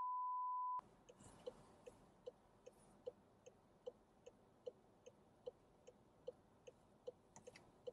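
A steady high beep cuts off just under a second in. After it comes the faint, even ticking of a car's indicator relay, about two and a half clicks a second, alternating stronger and weaker, heard inside the cabin.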